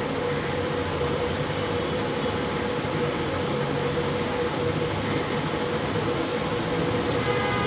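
Steady hum and hiss of a running machine in the room, even throughout, with a faint held tone.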